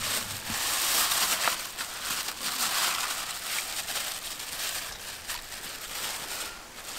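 Thin plastic carry bag crinkling and rustling unevenly as it is shaken and squeezed to empty it.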